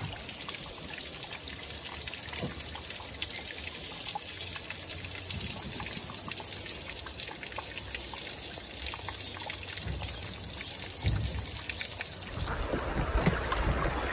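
Creek water running over stones, a steady trickling rush with fine splashy ticks. Near the end it turns rougher and fuller, with a few low knocks.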